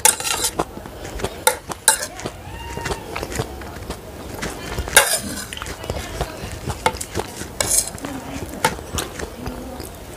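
Metal spoon and fork scraping and clinking against a ceramic plate while gathering up noodles: a string of irregular scrapes and sharp clicks, the loudest about five seconds in.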